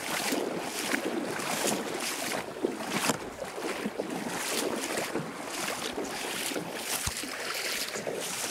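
Steady rhythmic water splashing, about two splashes a second, from kayakers moving through calm shallow water.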